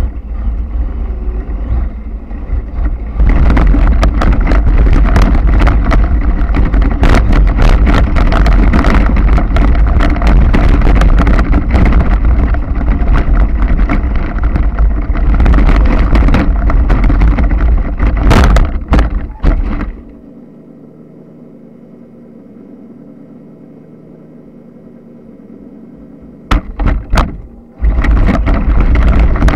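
Radio-controlled off-road truck driving hard over rough ground, heard from its onboard camera: loud rushing noise full of rattles and knocks. About 20 seconds in it drops to a quieter steady hum, and the loud driving noise returns near the end.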